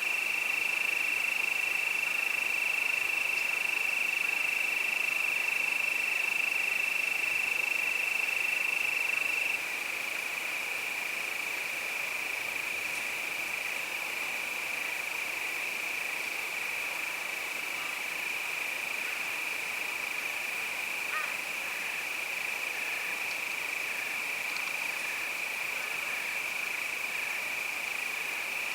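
Crickets singing in a steady chorus, one unbroken high trill that eases slightly in level about ten seconds in.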